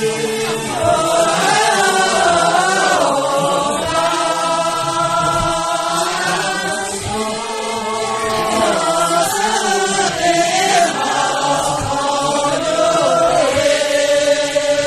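A group of men and women singing together in unison, in long drawn-out melodic phrases whose pitch rises and falls, in the manner of a chanted devotional song.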